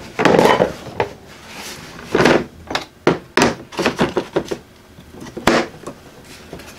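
Steel brake tools and a hard plastic tool case being handled: a string of separate knocks and clatters, the loudest just after the start and a few more through the middle.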